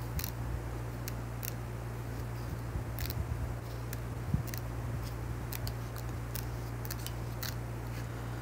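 Pages of a 6-by-6-inch patterned paper pad flipped one after another, giving irregular light paper flicks about one or two a second over a steady low hum.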